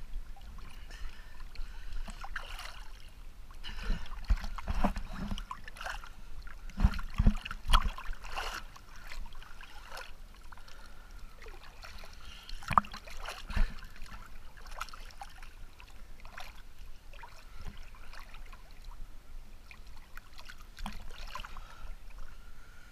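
Lake water lapping and splashing against a camera held at the water's surface, with irregular knocks as small waves slap the housing, loudest in a cluster between about four and eight seconds in and again a little past the middle.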